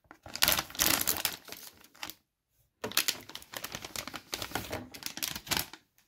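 Metallic anti-static bag crinkling and rustling as it is handled and opened to take out a PCI-E riser cable, in two stretches with a brief pause about two seconds in.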